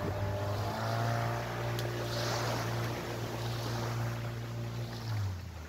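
A motor engine humming steadily, its pitch sliding lower about five seconds in, as of a vehicle passing by.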